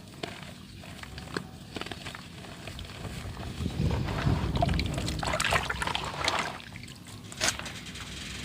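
Soft dirt crumbling into water: small crackles with trickling and sloshing, growing louder from about three and a half seconds in and easing off after about six seconds, with one sharp crackle near the end.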